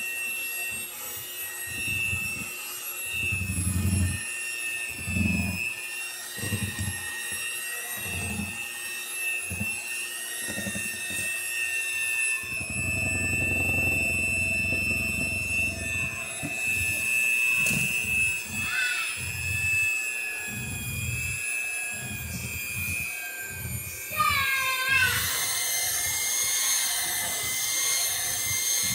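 Electric hand mixer running steadily with a high motor whine as its beaters churn thick batter, with irregular low thumps from the beaters working the mix. Near the end the whine shifts in pitch and gets louder.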